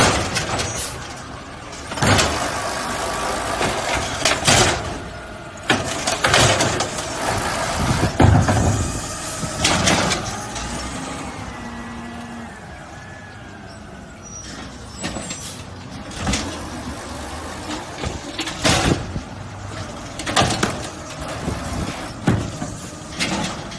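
Garbage truck running, with repeated loud, sudden bursts of hissing air, like air-brake releases, about nine times through the stretch, and a quieter lull in the middle.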